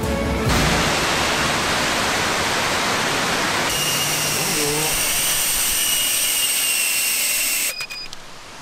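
Loud rushing noise, joined about halfway through by the high, steady whine of a small FPV drone's electric motors and propellers, which cuts off abruptly near the end.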